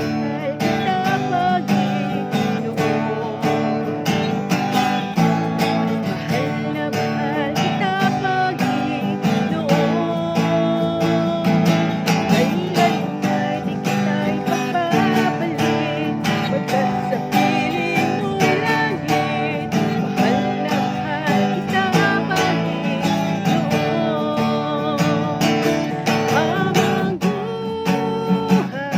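Background music led by strummed acoustic guitar, with a singing voice at times.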